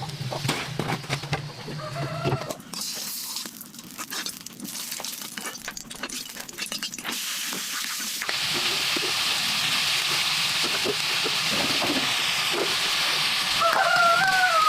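Chickens clucking, with short calls about two seconds in and again near the end, over scattered knocks of handling. From about eight seconds in a steady hiss sets in, like sizzling or a crackling fire.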